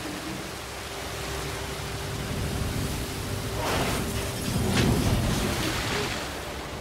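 Rushing noise of wind and rough sea, swelling to a loud wash of water about four to five seconds in. A faint steady hum lies beneath it until about four seconds in.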